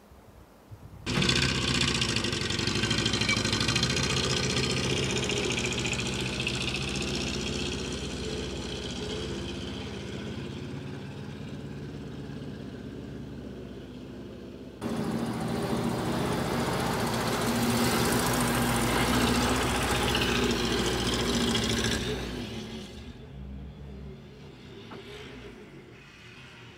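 UAZ flatbed truck's engine starting up abruptly about a second in and running. It comes in louder again at about 15 s, then fades away over the last few seconds as the truck drives off.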